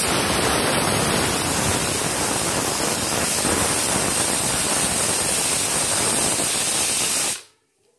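Pressure cooker on a gas burner letting off its first whistle: a loud, steady hiss of steam venting past the weight, which cuts off suddenly near the end. The release means the cooker has reached full pressure.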